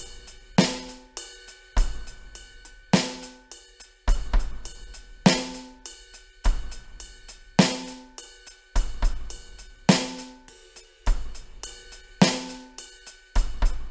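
Electronic drum kit playing a slow, steady groove: a hi-hat pattern runs throughout, with a bass drum hit and a snare hit alternating about once every 1.2 seconds.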